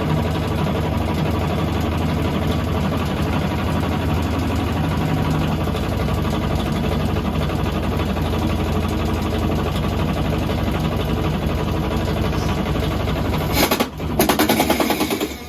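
Electrolux LTE12 top-loading washing machine spinning with a loud, steady mechanical hum and rumble. Near the end comes a louder burst of fast rattling, after which the noise drops sharply.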